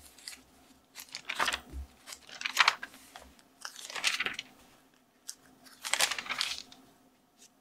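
Bible pages being turned: four or five separate paper rustles a second or two apart as the book is leafed through to a passage.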